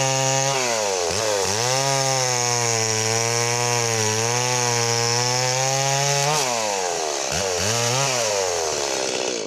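Stihl MS 170 two-stroke chainsaw running at full throttle as it cuts through a fallen log, its engine note dipping sharply a couple of times about a second in as the chain loads up in the cut, then swinging up and down in pitch in the last few seconds.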